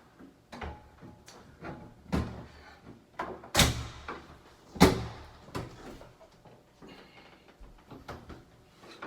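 Flathead screwdriver working at a stuck door latch: a series of sharp knocks and rattles against the door, the two loudest blows about a second apart near the middle.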